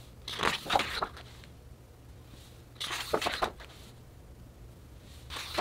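Thick pages of a large hardcover photobook being turned by hand, a papery swish three times, about two and a half seconds apart.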